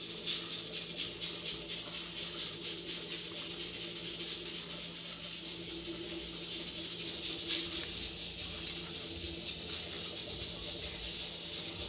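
Knife slicing a red bell pepper into thin strips in the hand, a run of small crisp cuts, over a steady low hum and a faint hiss.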